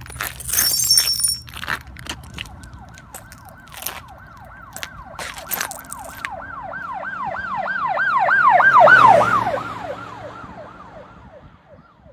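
Emergency-vehicle siren on a rapid yelp, about three rising-and-falling sweeps a second, growing louder to a peak about nine seconds in and then fading as it passes. A few clicks and a short high hiss come in the first two seconds.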